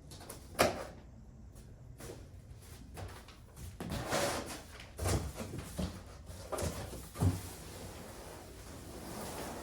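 Packaging being handled during the unboxing of a road bike: several sharp knocks and thumps, the loudest about half a second in and again near the end, with rustling in between.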